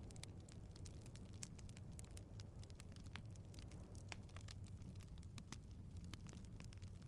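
Wood fire crackling in a fireplace: irregular small snaps and pops, several a second, over a steady low rumble of the flames.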